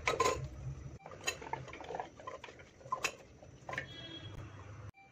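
Chopped raw carrot pieces dropped by hand into a pressure cooker, landing as a few separate clicks and knocks about a second apart.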